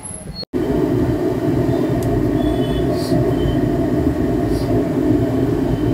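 A steady, loud kitchen roar with a constant rumble, with a few faint ticks from puffed rice being mixed by hand in a steel bowl.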